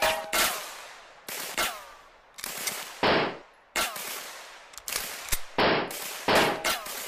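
Gunshot sound effects for a submachine gun: a run of single sharp shots, irregularly spaced about every half second to a second, each followed by a fading ring.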